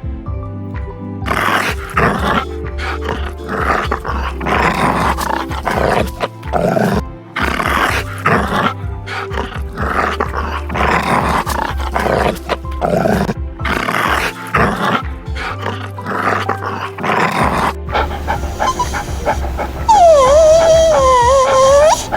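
Animal calls repeated in short loud bursts over background music, followed near the end by a wavering, gliding high-pitched call.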